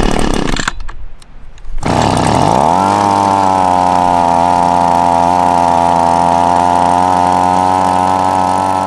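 Echo PB-2520 handheld leaf blower's two-stroke engine pull-started cold on full choke after sitting about ten months: a rough pull-start rope stroke first, then the engine catches about two seconds in, its revs falling and settling within a second into steady running.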